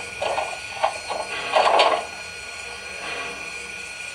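Steam-locomotive sound effects from the Proto-Sound 3.0 system of an MTH O-gauge Southern Pacific cab-forward model: a cluster of short, irregular bursts in the first two seconds, then a steadier, quieter sound.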